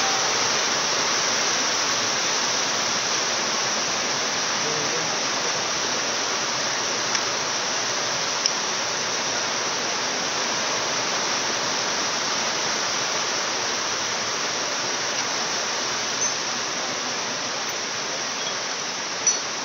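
A steady, even hiss with a few light clicks of metal parts being handled on a dismantled generator engine.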